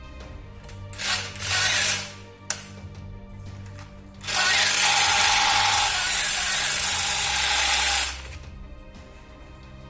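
Toy gun mechanism working: two short mechanical rattles and a sharp click, then a loud continuous rattling burst of about four seconds, like a toy machine gun's motor-driven firing sound. Background music plays under it.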